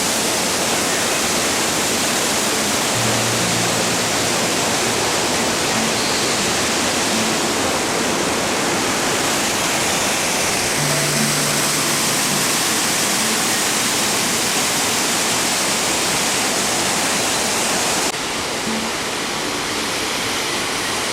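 Waterfall rushing steadily, a loud, even roar of falling water. The sound turns slightly quieter and duller near the end.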